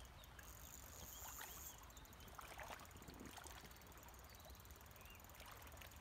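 Faint flow of a shallow river over a pebble bed, with a few faint chirps and ticks.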